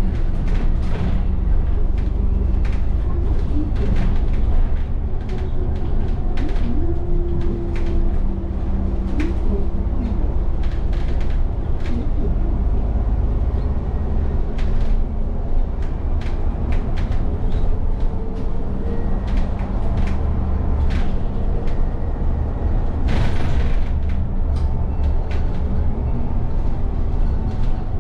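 Interior of an Alexander Dennis Enviro400 double-decker bus on the move: a steady low engine and drivetrain rumble with a whine that wavers in pitch, and frequent clicks and rattles from the body and fittings. Near the end there is a brief burst of hiss, about a second long.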